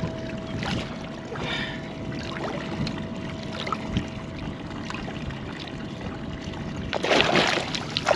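Water lapping and trickling against a boat's hull while a striped bass is held in the water alongside, then two loud splashes near the end as the fish thrashes at the surface.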